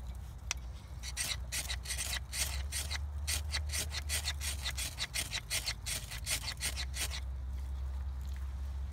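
Ferro rod struck repeatedly with the sharp 90-degree spine of a carbon-steel bushcraft knife, a quick series of rasping scrapes about three a second that throws sparks onto the wood shavings. The strokes stop about seven seconds in.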